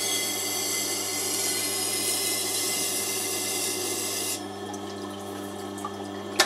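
Steel cleaver edge grinding against a spinning 1000-grit CBN wheel on a sharpening machine, a steady hiss over the motor's hum. The hiss stops about four seconds in as the blade comes off the wheel, and the motor hum then ends with a click near the end.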